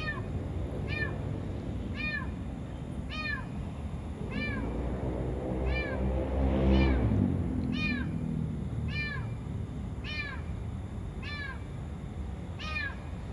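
A cat trapped inside a parked car, said to be in the engine compartment, meowing over and over, about one call a second, each call rising and falling in pitch. A low rumble swells and fades in the middle.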